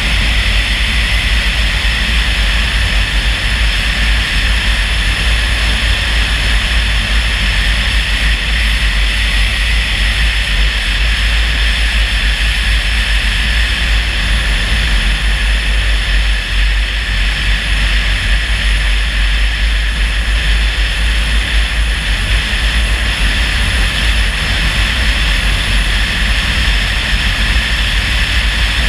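Steady road noise of a moving car: a constant deep rumble with an even hiss over it, unchanging throughout.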